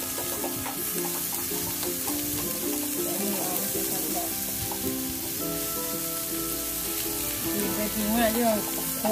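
Pork slices sizzling steadily on the hot dome of a mookata grill pan, under background music with a melody, and a singing voice near the end.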